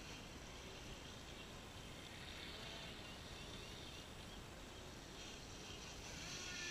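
Faint, distant whine of a small electric RC speed boat (FT007) running across the water, with a few high chirps about a third of the way in.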